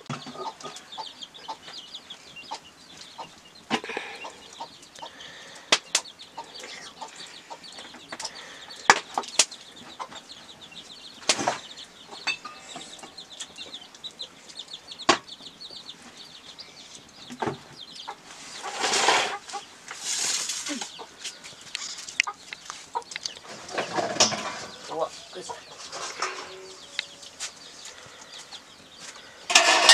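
Chickens clucking, with scattered sharp knocks throughout and a few louder bursts of noise about two-thirds of the way through.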